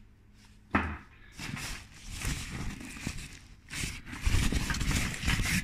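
Handling of a nylon backpack: a sharp knock just under a second in, then irregular rustling and bumping of fabric and gear, louder in the second half.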